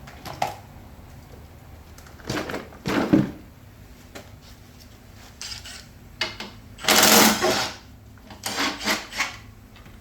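A string of short scraping and rattling bursts from hand work on a mower's rear wheel assembly, the loudest lasting nearly a second about seven seconds in, with a quick cluster near the end.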